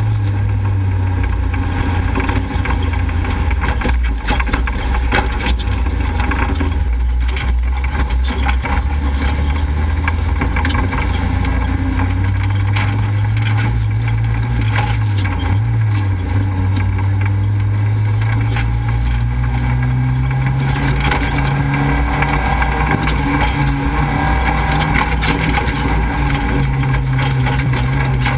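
Off-road race vehicle's engine running hard on a dirt track, picked up close by a hood-mounted camera, with heavy wind and gravel noise over it. The engine note stays steady, then climbs a little in pitch about two-thirds of the way through.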